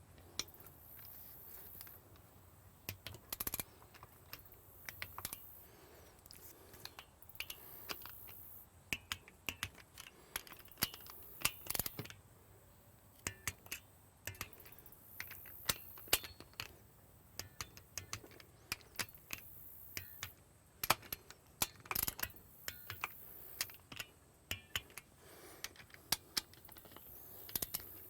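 Wrench ratcheting in short spells with scattered metal clicks and taps, as the reed-plate bolts of a Johnson 15 HP outboard are tightened in turn to 60 to 80 inch-pounds.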